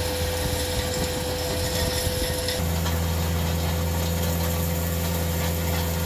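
CAT 259D3 compact track loader's diesel engine running steadily while it drags a power rake through a gravel driveway. About two and a half seconds in the sound changes abruptly to a steadier, deeper engine hum.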